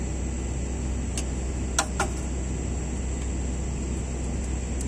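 Steady low hum of machinery running, with a few short light clicks about two seconds in.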